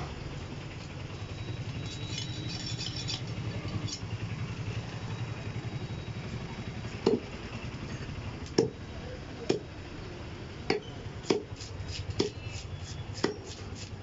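A heavy curved fish-cutting knife chopping through a large fish onto a wooden log chopping block: about seven sharp chops, roughly one a second, in the second half. A steady low engine hum, like an idling vehicle, runs underneath.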